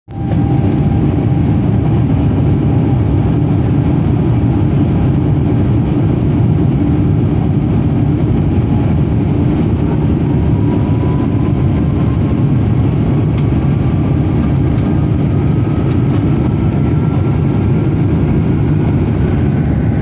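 Airbus A350's jet engines at takeoff power, heard inside the cabin during the takeoff roll: a loud, steady rumble with a thin whine that climbs slowly in pitch as the aircraft gathers speed.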